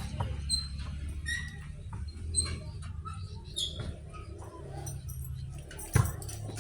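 Birds chirping in short high notes over a steady low hum, with scattered light clicks and a knock about six seconds in.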